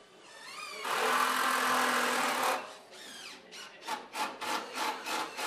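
Cordless drill whining up to speed and driving a screw into wood for about a second and a half, then stopping. After it come about seven short rasping strokes on wood, roughly three a second.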